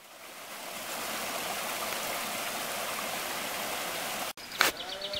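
Steady rushing of flowing water, fading in over the first second and cut off abruptly a little over four seconds in. A songbird's rapid trill starts just before the end.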